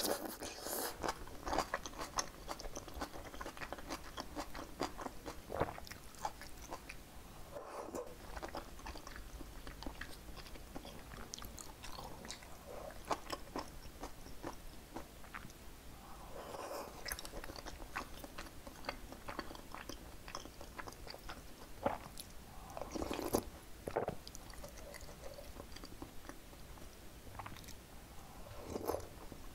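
Close-miked eating: wet chewing and biting of perilla-seed sujebi dough pieces and vegetables from the soup, with a run of small mouth clicks. Fuller wet mouthfuls come about halfway through and again a few seconds later.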